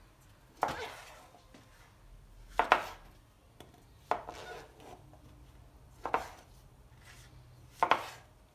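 Kitchen knife cutting cremini mushrooms into quarters on a cutting board: five separate strokes, each a short knock, spaced about one and a half to two seconds apart.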